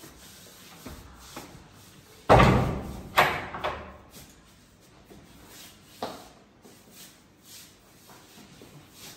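A wooden double door is pushed shut with a bang about two seconds in. A sharper knock follows at once, as its top bolt is slid home, and a lighter knock comes a few seconds later.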